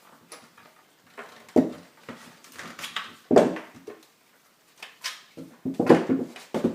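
Handling noise of a camera being moved and repositioned: irregular knocks, scrapes and rustles, loudest about a second and a half, three and a half and six seconds in.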